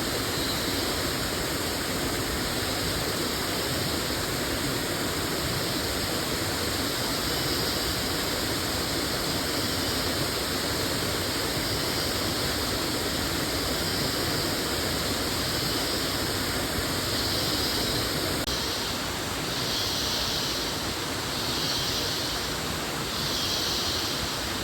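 Waterfall: a steady rush of falling water. About three-quarters of the way through, a soft high pulsing hiss comes in, repeating about once every second and a half.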